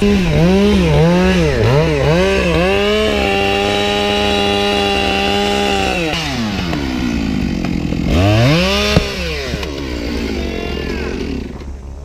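Chainsaw cutting into the trunk of a large Monterey cypress for the felling cut behind the scarf: the throttle is blipped for a few seconds, held steady at full speed for about three seconds, drops about six seconds in, revs again briefly near nine seconds, then eases off toward the end. A steady low engine hum runs underneath.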